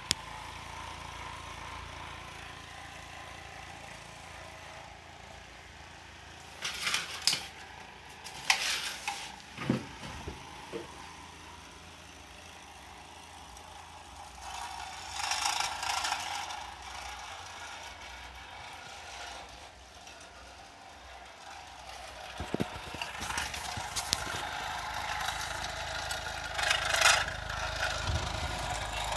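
Small DC motor of a homemade toy helicopter spinning its propeller with a steady whir. Several sharp clattering knocks come about a third of the way in, and louder bursts follow later, as the model is handled.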